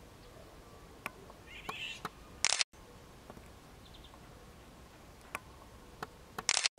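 Eurasian golden oriole giving short, harsh rasping calls: a softer rasp, then two loud ones about four seconds apart, each cut off abruptly, with a few sharp clicks between.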